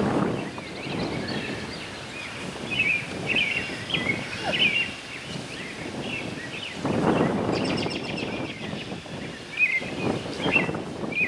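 Several songbirds chirping and calling at dusk, with gusts of low rumbling noise on the microphone, the strongest about seven seconds in.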